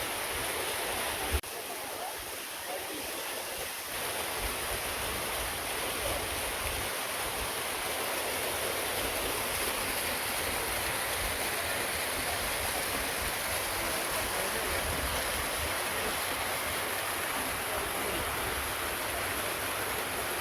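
Waterfall, a steady rush of falling water. The sound drops a little about a second and a half in and comes back up about four seconds in.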